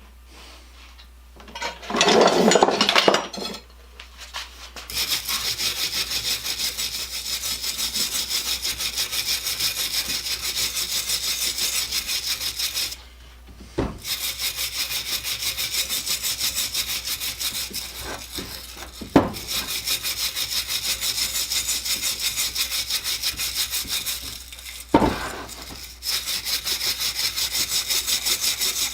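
Rapid back-and-forth scrubbing strokes by hand, about five a second, in runs of several seconds with short pauses, as a part is scoured clean. There is a louder scraping burst about two seconds in and a few sharp knocks later on.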